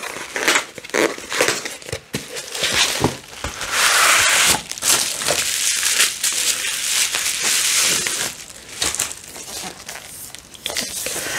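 Plastic bubble wrap crinkling and crackling as it is unwrapped and pulled off an eyeshadow palette, loudest in the middle stretch.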